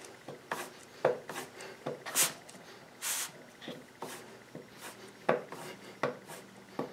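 A steel plane iron, its back held flat, pulled again and again along a leather strop charged with green honing compound: short rubbing strokes, roughly two a second. This is the final stropping of the blade's back, polishing it and taking off the wire edge.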